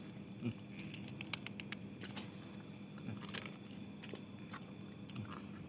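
Faint scattered clicks, light knocks and rustles as wet cat food is put out by hand onto paper plates on pavement, with a somewhat louder knock about half a second in, over a steady low hum.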